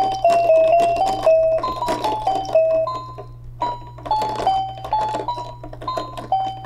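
Battery-powered baby activity cube playing an electronic melody in single beeping notes over a light ticking beat, with a short pause about three seconds in.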